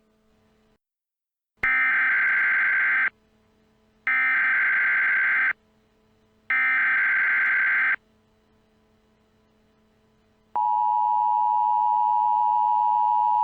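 Emergency Alert System alert opening: three bursts of SAME header data tones, each about a second and a half long with a second's gap between them. Then, about ten and a half seconds in, the steady EAS attention tone starts and holds.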